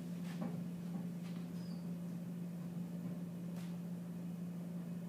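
Steady low hum of room tone, with a few faint soft clicks and rustles, about four, spread through it.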